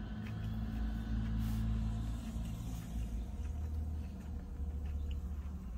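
Low, steady rumble of a vehicle engine idling, with a hum over it that fades out about two and a half seconds in; soft chewing of a biscuit sandwich.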